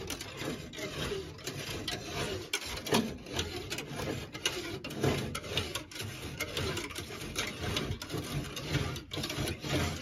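A hand-held window-removal cutting tool worked through the adhesive bond of a Mini's rear side window glass: a rapid, irregular rasping with many sharp clicks and knocks against the glass and frame.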